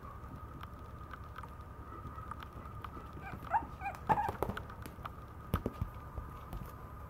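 Maltese puppy giving a few short, high whines about three seconds in, with sharp clicks and knocks around them as it moves about on the tiled floor. A faint steady tone hums underneath.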